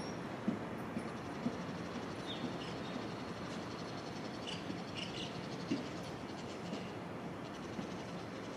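Steady low rumble of a distant electric-hauled freight train approaching on the line, with small birds chirping in short calls now and then.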